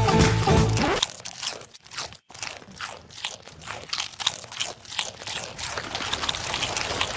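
Music stops about a second in. After a short silence, a goat eats Doritos tortilla chips: a run of crisp crunches, a few a second, growing slightly louder toward the end.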